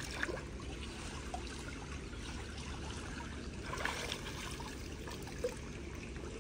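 Swimming-pool water sloshing and trickling as people move through it, with a few small splashes about four seconds in.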